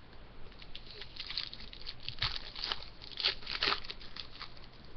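Hockey card pack wrapper crinkling and tearing, with cards rustling as they are handled. The rustles are short and sharp and come thickest between about two and four seconds in.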